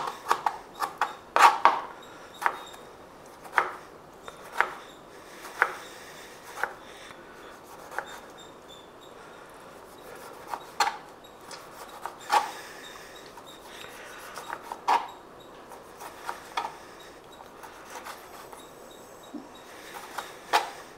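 Kitchen knife chopping tomatoes on a cutting board: sharp knocks of the blade against the board at an uneven pace, about one a second at first and more spaced out later.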